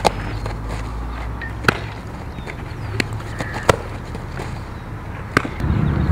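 Softball fielding drill: about five sharp cracks and pops spread a second or so apart, from a ball struck by a bat and smacking into leather gloves, over a steady low rumble that grows louder near the end.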